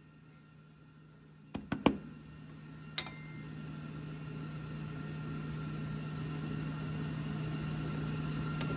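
A few sharp knocks and a click, then a steady machine hum with a faint whine that slowly grows louder.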